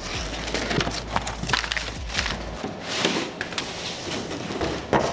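Plastic stretch wrap crackling and tearing as a utility knife cuts open a wrapped cardboard box, with irregular knocks and scrapes as the box is handled.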